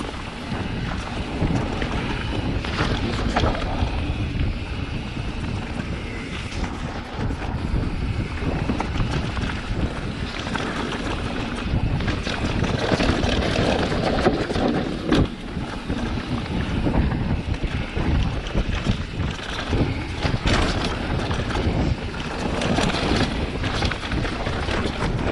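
Enduro mountain bike riding down a rough, rocky trail: wind rushing over the microphone and tyres rolling over dirt and rock, with frequent knocks and rattles from the bike over the bumps.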